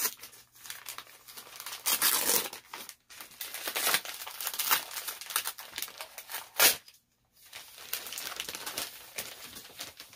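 Christmas wrapping paper crinkling and tearing as a small gift is unwrapped by hand, in irregular rustles with a sharp crackle about two-thirds of the way through, followed by a brief pause.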